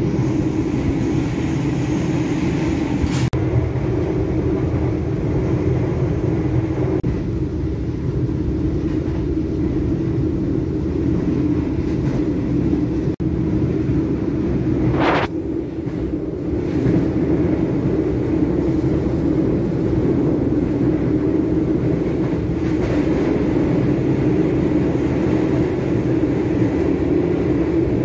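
Argo Cirebon passenger train running at speed, heard from inside the carriage: a steady rumble of wheels on rails, with a brief rush of noise about halfway through.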